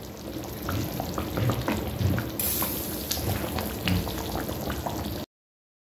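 Thick tomato stew simmering in a metal pot, bubbling with many small pops and soft low blips, with a spoon stirring it at first. The sound cuts off suddenly about five seconds in.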